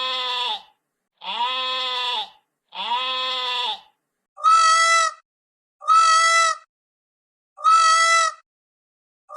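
A farm animal's bleating call, repeated three times with identical one-second calls. About four seconds in, a different, higher and louder animal call takes over, repeated four times at even intervals.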